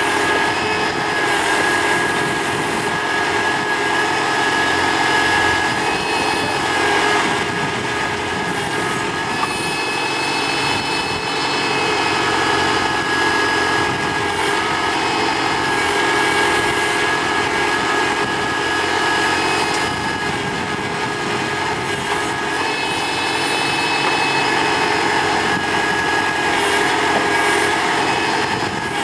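Tractor engine running steadily while driving a mounted backhoe digging soil, with a steady whine over the engine noise.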